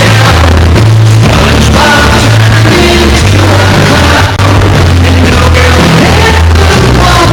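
Loud music with a heavy, distorted bass line changing notes, with some singing over it.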